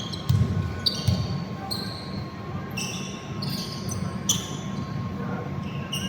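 Basketball game play on an indoor court: sneakers squeak in short high chirps again and again, and a ball bounces, with echoing hall hubbub underneath.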